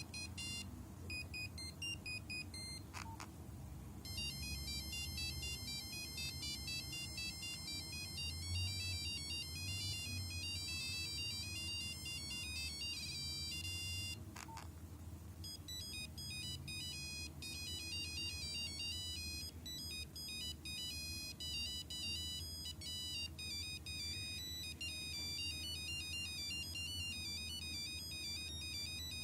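Nokia 5125 mobile phone playing its built-in ringtones one after another: high beeping tunes, one note at a time. A click about three seconds in and another about halfway through mark where one tune stops and the next begins. A low hum runs underneath.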